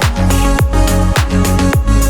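Background music: an upbeat electronic dance track with a steady kick-drum beat, about two beats a second.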